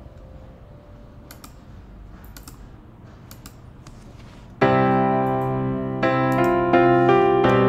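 Background music played on a keyboard instrument. A quiet passage with a few faint clicks gives way about four and a half seconds in to a sudden, louder melody of held notes that change several times.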